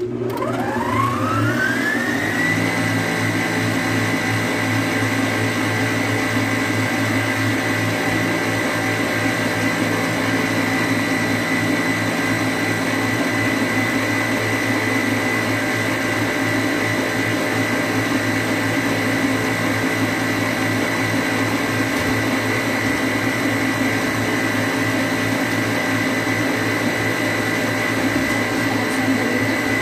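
Electric stand mixer switched on, its motor whine rising in pitch over the first couple of seconds and then running steadily at speed. The wire whisk is beating egg whites, cream of tartar and sugar toward a stiff-peak meringue.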